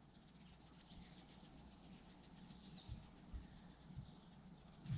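Near silence: faint outdoor background hiss with a few soft, low knocks near the middle.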